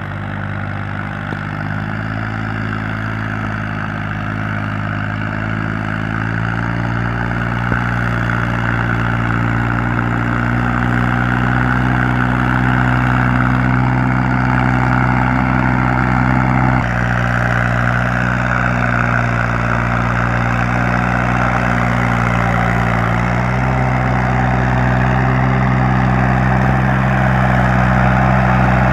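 Tractor engine sound running steadily at a low idle-like pitch, which shifts in small steps a few times.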